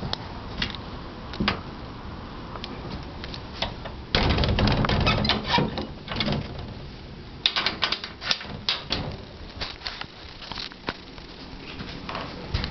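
Handling noise from a camera being carried and moved: scattered clicks and knocks, with two longer bursts of rustling, one about four seconds in and one about seven and a half seconds in.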